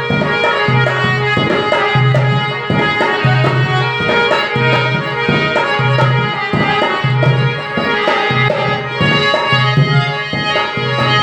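Instrumental interlude of a devotional bhajan: a harmonium holds steady chords over hand-drum playing with a steady beat.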